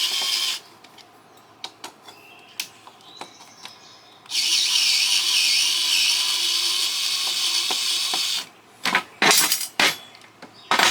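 Power drill running in two long spells to back screws out of a satellite LNBF's housing, with small clicks between them and several short blips of the drill near the end.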